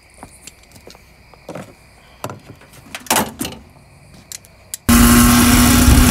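Faint scattered clicks and light knocks, then about five seconds in, loud heavy-metal music with electric guitar cuts in suddenly.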